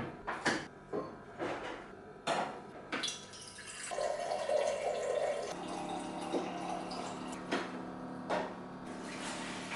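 A few knocks and clinks of items being handled, then water running from a bottom-loading water dispenser into a glass jug, starting about four seconds in, with a low steady hum joining the pour.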